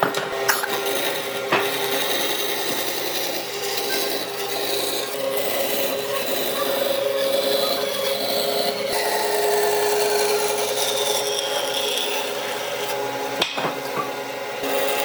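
A power tool working on wood: a steady motor tone under continuous abrasive scraping, with a short knock about a second and a half in and another near the end.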